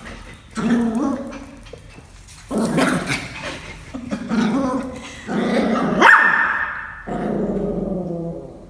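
Pomeranian growling and barking in repeated bursts, each a second or so long, with a brief high-pitched squeal about six seconds in.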